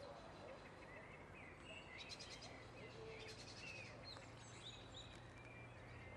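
Small birds chirping and trilling faintly, many short high calls and quick rattling runs, over a steady low hum.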